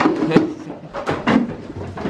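Irregular knocks, bumps and scuffs as goats jostle and nose against the camera in a wooden shed.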